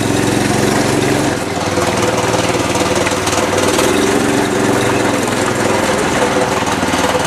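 Snapper riding mower's small petrol engine running under way, its pitch dipping briefly about a second in and then holding steady, with the engine not yet warmed up.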